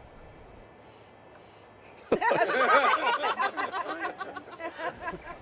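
A loud warbling sound, voice-like in its pitch, swooping rapidly up and down in arcs. It starts abruptly about two seconds in and lasts about three seconds, after the background crickets cut out.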